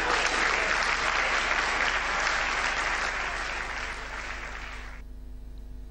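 Audience applauding, slowly fading, then cut off abruptly about five seconds in, leaving a faint hum.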